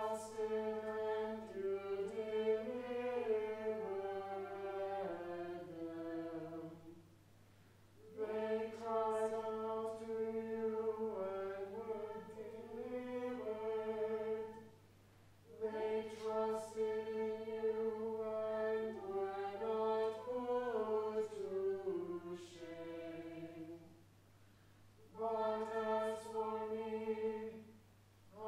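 Church choir chanting in unison, in phrases of several seconds that each open on a long held note before the melody moves, with short breaks between phrases. A low steady hum runs underneath.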